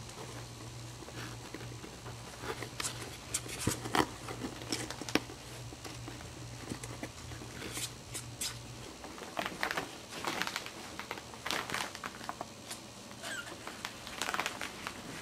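Small puppies scrabbling and shuffling about in a cardboard box lined with paper and cloth: irregular scratching, claw clicks and crinkling of the lining.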